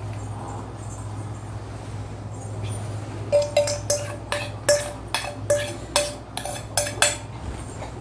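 A spoon clinking against the side of a glass jar of ice and soda as a mojito is stirred: about ten ringing clinks, roughly two and a half a second, starting about three seconds in and stopping a second before the end.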